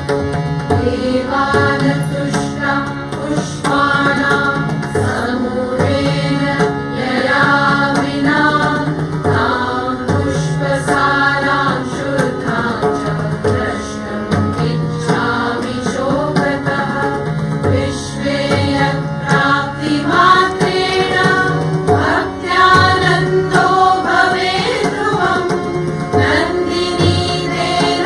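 Indian devotional song in Carnatic style: voices singing a flowing melody over a steady hand-drum rhythm.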